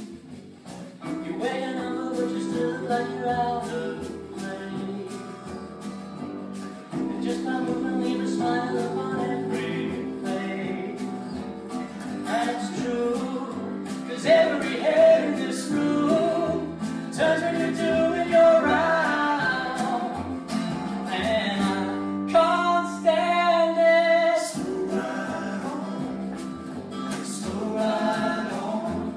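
A song performed live: several voices singing together in harmony, with instrumental backing.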